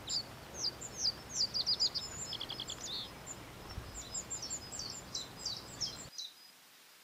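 Several small songbirds singing with quick high chirps and trills over a steady outdoor background hiss. The birdsong and background cut off abruptly about six seconds in.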